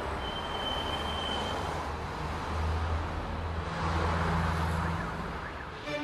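Street traffic: a motor vehicle's engine rumbling low as it passes, with tyre noise, loudest about four seconds in. A brief high steady whine sounds in the first second and a half.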